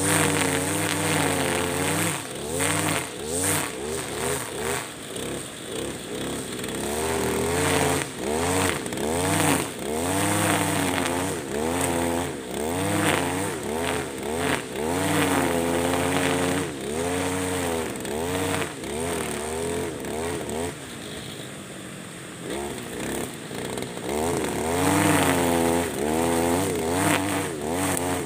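Husqvarna 542RBS 42 cc two-stroke backpack brushcutter revving up and down about once a second as its square nylon trimmer line cuts tall grass, with sharp ticks of the line striking. About two-thirds of the way through it drops to a lower speed for a few seconds, then revs up again.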